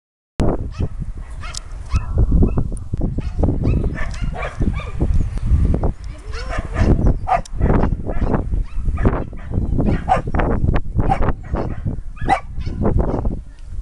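A dog barking over and over, the short barks following each other in quick succession, over a steady low rumble.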